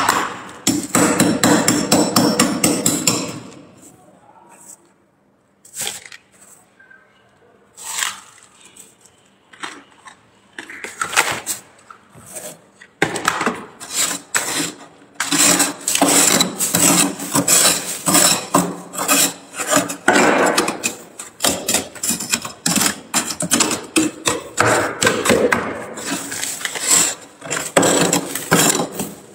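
A metal scraper scraping and chipping thick frost build-up off the inside of a freezer, in rapid, crunchy strokes. The scraping stops about four seconds in, leaving a few scattered scrapes, then resumes densely about 13 seconds in.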